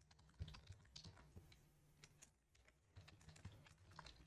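Faint typing on a computer keyboard: quick runs of keystrokes, thinning out briefly around the middle.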